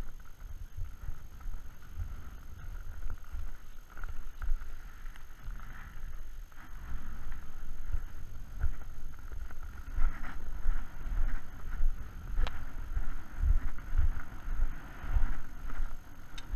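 Wind buffeting a body-worn camera's microphone in irregular low rumbling gusts, with footsteps crunching on snow-covered ice.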